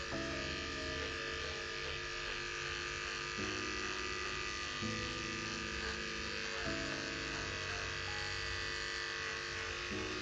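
Corded electric clipper running steadily as it shaves matted fur off a long-haired cat. The hum shifts slightly in pitch every second or two as the blade works into the mats.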